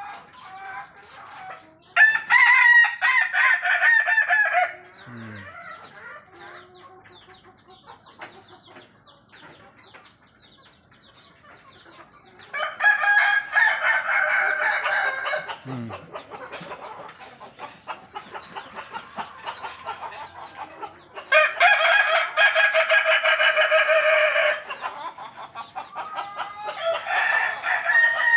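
Roosters crowing: four long crows of about three seconds each, the last running on past the end, with softer chicken calls in between.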